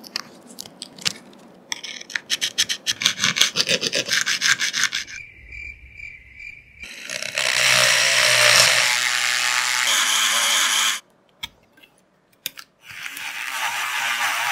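A small pen-style rotary tool grinding the iPhone's metal frame to widen the charging port opening for a USB-C plug. The grinding comes in two loud stretches: the first cuts off suddenly, and the second starts again near the end. Before the grinding there are a few seconds of quick rubbing strokes and a brief steady high whine.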